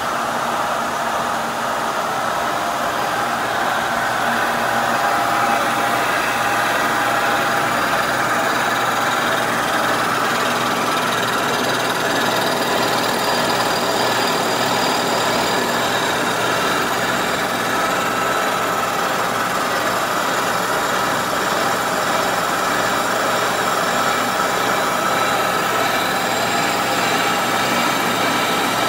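Kearney & Trecker horizontal milling machine taking a finishing face cut with a 3.5-inch high-speed-steel shell mill on a cast surface: a steady, even whir of spindle and cutter chewing through the metal, with no pauses or changes.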